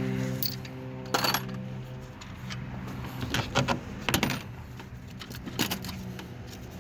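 A handful of sharp metallic clinks and clatters, like metal tools or parts being handled and set down, over a steady hum that fades out about two seconds in.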